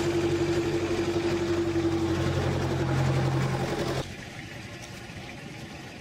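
Boat engine idling steadily with a constant hum, cut off suddenly about four seconds in, leaving quieter street sound.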